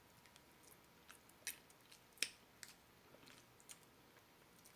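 Near silence broken by a handful of short, faint clicks and ticks, the sharpest about halfway through.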